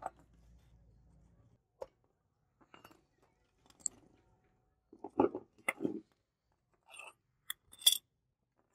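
Light clicks and clinks of small rusty metal model car parts being pulled apart and set down on a wooden tabletop, as scattered taps with the loudest cluster about five to six seconds in.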